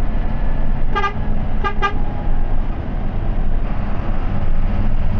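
Steady engine and road rumble inside a moving bus's cabin, with a vehicle horn giving three short toots: one about a second in, then a quick pair just after.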